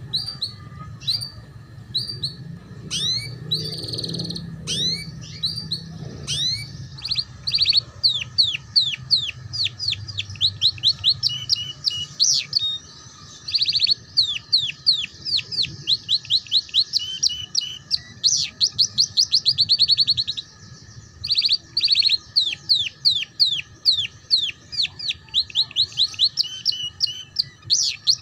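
Yellow domestic canary singing long runs of fast, high, downward-sweeping notes repeated many times a second, broken by short pauses. This is the rapid trilling 'ngeriwik' song played as a master recording for young canaries to learn.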